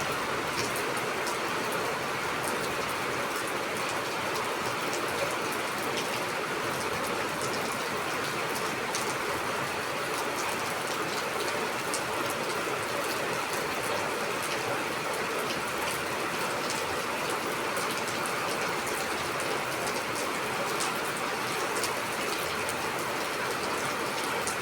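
Steady rain falling, a constant hiss with many small drop ticks scattered through it.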